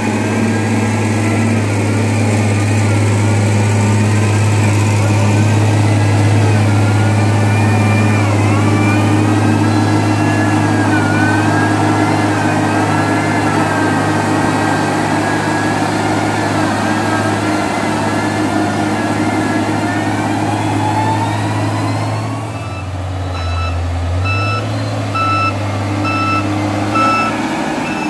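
Heavy diesel construction machine running steadily, with a wavering whine above the engine that rises in pitch near the middle. Near the end its reversing alarm beeps in a regular run of short beeps while the engine note changes.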